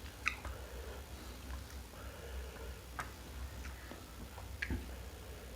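Close-miked eating: scattered wet mouth clicks and smacks while chewing food, a handful of sharp ticks a second or more apart, over a steady low hum.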